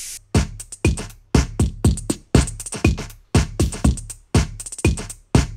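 Electronic dance music with a drum-machine beat: punchy kick drums about twice a second with fast hi-hat ticks between them.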